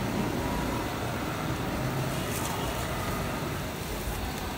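Street traffic noise: a steady wash of passing vehicles with a low engine hum, and a few faint clicks about two and a half seconds in.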